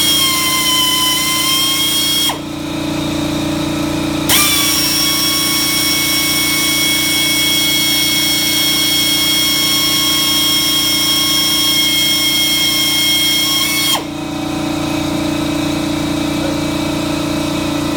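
Drill running in two bursts while drilling out pull rivets: a short one at the start and a long one of about ten seconds from about four seconds in. Its high whine climbs as it spins up, holds steady, and drops as it stops, over a steady low hum.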